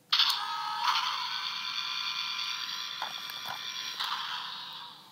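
Thunderbird 2 toy's electronic sound effect playing from its small built-in speaker: a steady, high-pitched hum of several tones. It starts suddenly and fades out near the end.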